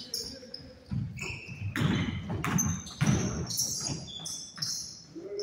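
Basketball bouncing on an indoor court during play: several separate bounces, with short high squeaks between them.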